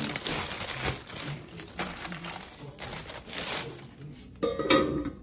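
Rustling, crinkling handling noise, then near the end a sharp metallic clank that rings briefly, as the aluminium tiers of a manti steamer pot are handled.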